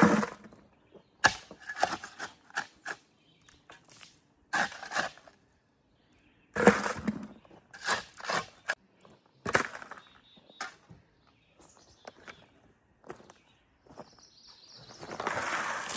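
A series of irregular knocks and scrapes, one every second or so, with a hiss building near the end.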